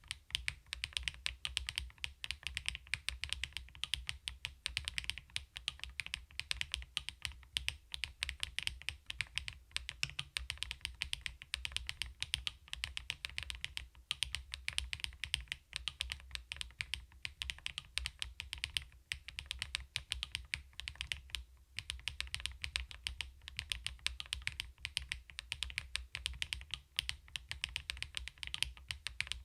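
Mechanical keyboard being typed on quickly and without pause: many crisp keystroke clicks a second from the CoolKiller VIVID67, a full-aluminium 65% board.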